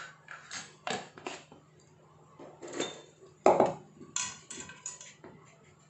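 Salt being spooned from a plastic tub into a metal kadhai and spread around the pan, an irregular run of short scrapes, clinks and pouring rustles, the loudest about three and a half seconds in. This is a salt bed being laid in the kadhai for baking a cake on the stove.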